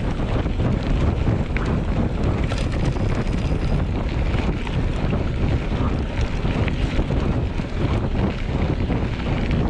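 Wind buffeting the microphone: a steady, loud rushing noise heaviest in the low end, with a few faint clicks.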